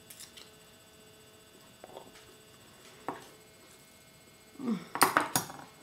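Metal fork on a tin can of tuna: a few faint clicks, then about four and a half seconds in a quick run of sharp clinks and scrapes as she digs in and eats, along with a short low vocal sound from the eater.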